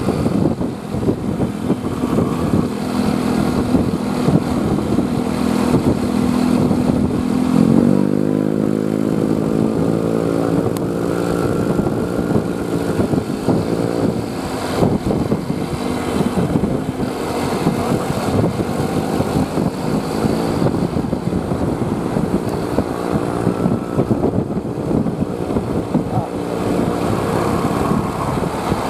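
A heavy vehicle's engine running steadily, then rising in pitch about eight seconds in as it speeds up, with road traffic around it.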